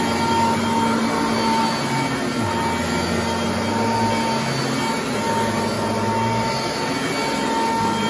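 Sanitaire commercial upright vacuum cleaner running steadily while being pushed and pulled over thick frieze carpet. It gives a constant whine, with a lower hum that shifts up and down in pitch every second or so.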